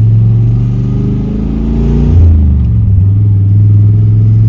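Carbureted 4.8-litre V8 with headers in a 1999 Chevrolet S10 pickup, heard from inside the cab under way. The engine pitch climbs, then drops suddenly about two seconds in as the four-speed manual is shifted up, and it settles to a steady cruise.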